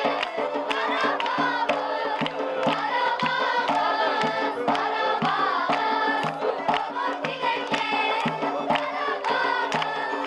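Children's folk ensemble performing live: violins and a drum keeping a steady beat under a chorus of children's voices singing.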